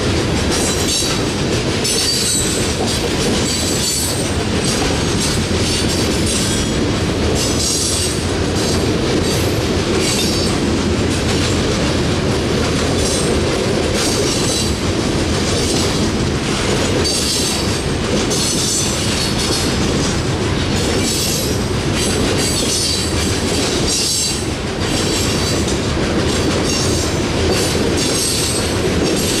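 Coal hopper cars of a long freight train rolling past close by: a steady rumble of steel wheels on rail with clicking, and high squeals from the wheels coming and going every second or two.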